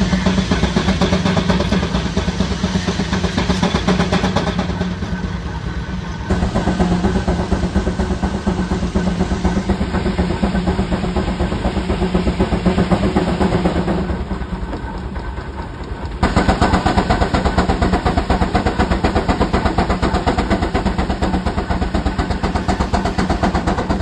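65 hp Case steam traction engine running under belt load driving a Frick sawmill, its exhaust chuffing in rapid, steady beats over a steady hum. The sound eases twice, about five and fifteen seconds in, then picks back up.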